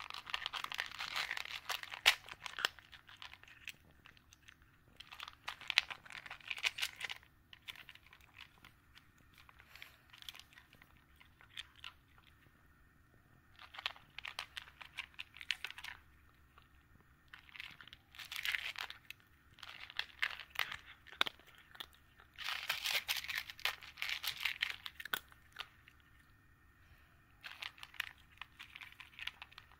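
A cat chewing its food: clusters of crisp, crackling clicks a second or two long, with short pauses between them.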